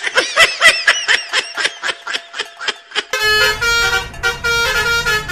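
A fast run of short chirping notes, each rising and falling, about seven a second. About three seconds in it gives way to a telolet bus horn, a Basuri-style multi-tone musical horn, playing a melody of held notes that step in pitch.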